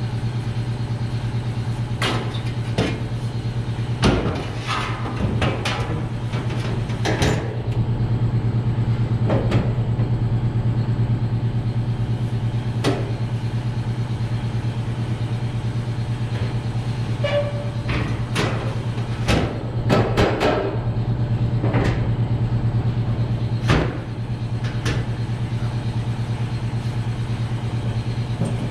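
Loose sheet-metal trunk floor panel knocking and clattering as it is shifted and pressed into place for a test fit, in scattered sharp knocks, over a steady low hum.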